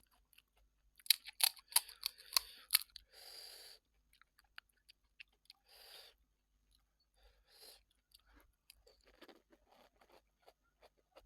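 Close-miked eating: a quick run of sharp, crisp crunches about a second in, then a few short breathy sounds and softer chewing toward the end.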